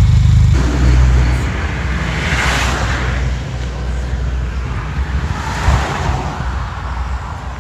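Benelli TRK 502's parallel-twin engine idling steadily just after a rev has died away. A rushing noise swells up twice over it.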